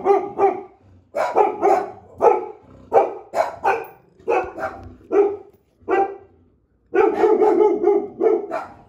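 Dogs barking in quick runs of short, loud barks, with a break of about a second around six seconds in before the barking picks up again.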